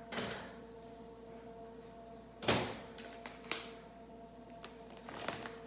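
Microwave door opened and a dish handled: a knock just after the start, a louder clunk about two and a half seconds in, then several lighter clicks and knocks.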